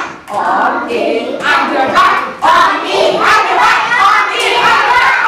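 A class of young children singing together.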